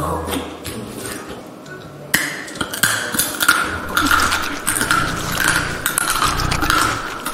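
A dog eating dry kibble from a plastic bowl: a quick, dense run of crunches and clinks starting about two seconds in.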